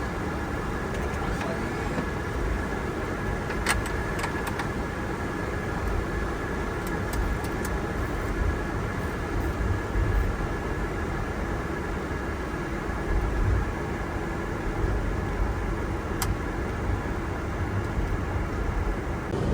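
Steady cockpit noise of a Boeing 747-400 taxiing after landing: a low rumble with a thin steady whine over it. A few short clicks come about four seconds in, several more around seven to eight seconds, and one near the end.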